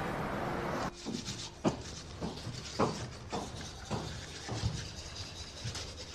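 Background music ends about a second in. It is followed by a run of light, sharp taps or knocks, roughly two a second and not quite even, over quiet room tone.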